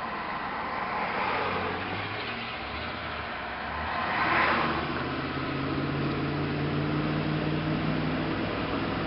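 Tow truck driving, heard from inside the cab: steady engine and road noise. About four seconds in, the noise swells as another vehicle goes by, and after that a steady engine hum comes through.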